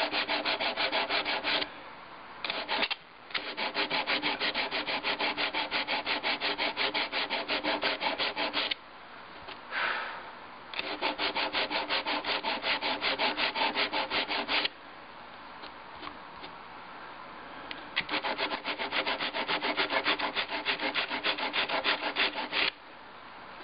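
Sandpaper wrapped around a flat stick, rubbed back and forth in quick strokes along a soldered seam to smooth the solder down. It comes in four bouts, with short pauses between them.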